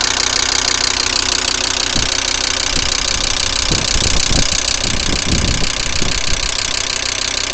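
VW Crafter 2.5 TDI five-cylinder diesel idling with a steady, fast knock that appeared after a start on a frosty morning, cause unknown to the owner. A few low rumbling thumps come through in the middle.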